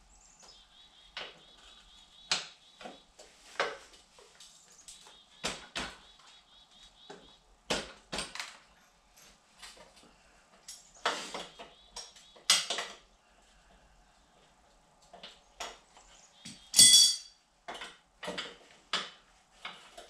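Metal hand tools clinking and knocking on the rear axle hardware of a Yamaha XT 225 while the rear wheel is being removed: a string of irregular clicks and taps, with a loud ringing metal clang near the end.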